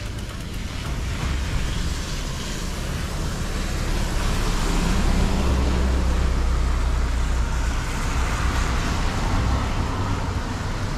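Outdoor road noise: a steady rush with a deep rumble that swells about four seconds in and eases off near nine seconds.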